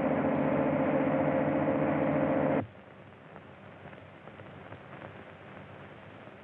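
A loud, steady multi-note tone that cuts off sharply about two and a half seconds in, leaving only faint hiss.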